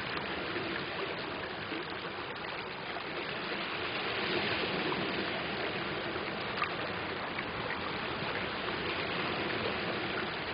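Shallow water running steadily over pebbles, with a few faint ticks of small stones in the flow.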